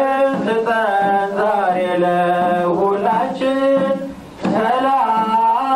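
Voices singing a slow Ethiopian Orthodox hymn (mezmur), with long held notes that slide up or down at the ends of phrases and a short break between phrases about four seconds in.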